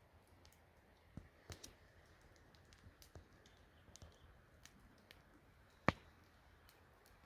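Faint, scattered small clicks and taps over quiet background, with one sharper, louder click about six seconds in.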